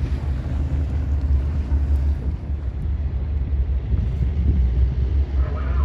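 Fishing boat engine running with a steady low rumble, wind buffeting the microphone. A brief voice comes in near the end.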